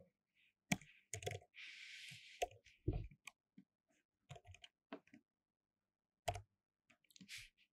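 Faint keystrokes on a computer keyboard: short, irregular clicks in small clusters as a line of code is typed.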